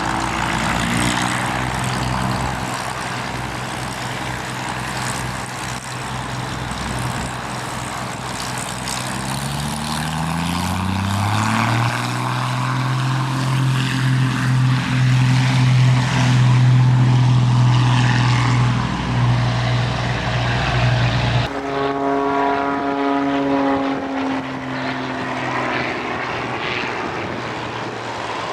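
Propeller aircraft engine running. Its note rises about ten seconds in and then holds steady. Near the end the sound changes abruptly to a higher, slowly falling tone.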